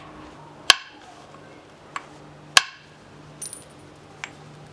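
Indirect-percussion flintknapping: a hammer striking a moose-antler punch set on the platform of a stone, two sharp cracks about two seconds apart, with a few fainter clicks between and after.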